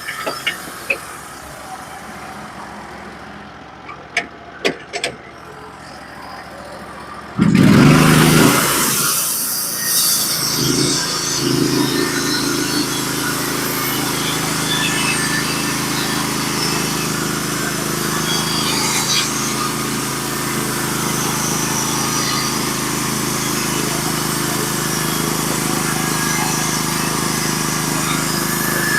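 Portable band sawmill's engine: a few sharp clicks, then about seven seconds in it comes on loudly and settles into a steady drone as the band saw makes its first cut through a scarlet oak log.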